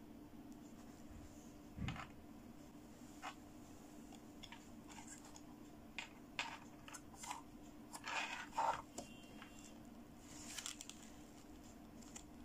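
Faint, scattered clicks, taps and scratchy rustles of hands handling a plastic fashion doll and its clothes, with a small cluster about eight seconds in, over a steady low hum.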